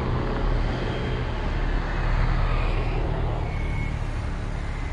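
Steady road-traffic noise, a low rumble of cars passing close by, swelling slightly about two seconds in.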